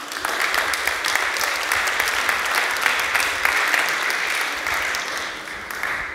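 Audience applauding, steady for several seconds and dying away near the end.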